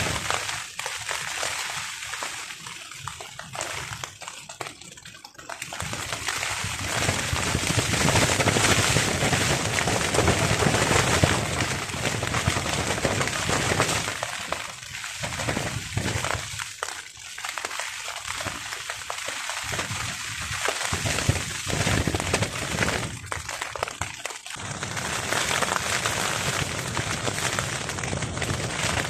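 Rain pelting a tarp shelter with strong wind gusting, a dense rushing noise that swells and eases in waves every several seconds.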